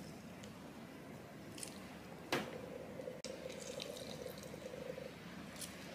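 Halved calamansi limes squeezed with a fork, the juice dripping into a bowl of chopped onion and chilli, with faint wet squishing and small ticks. One sharp tap a little over two seconds in.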